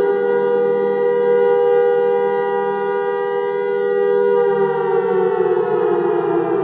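Air raid siren sounding a loud, steady held wail that starts to fall in pitch about four and a half seconds in, as it begins to wind down.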